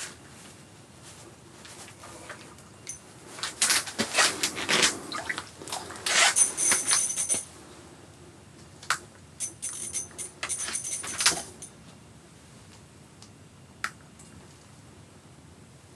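Ice-fishing reel clicking and rattling in two bursts, about four seconds in and again about nine seconds in, with a faint high ringing over the clicks, as a big walleye is played up to the hole.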